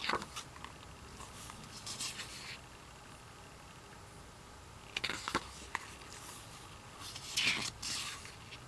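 Thick pages of a photobook being turned by hand: about four short paper rustles and flaps, spread across a few seconds.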